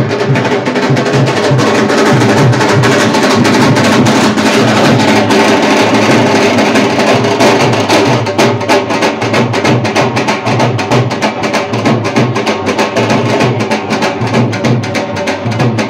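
Background music with a steady drum beat and percussion.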